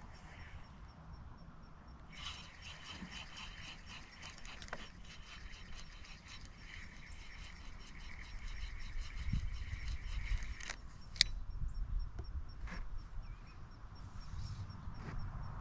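Baitcasting reel being cranked, its gears ticking steadily for several seconds as a lure is retrieved, then stopping; a single sharp click follows.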